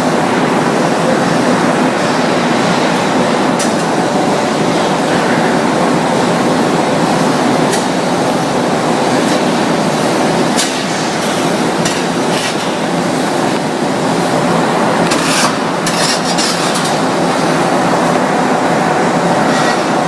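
Meat grinder running steadily with a continuous motor hum and grinding noise, with a few sharp clicks along the way.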